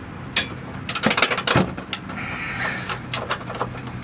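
Half-inch ratchet wrench clicking in short, uneven strokes as the upper shock mounting bolt is cranked tight.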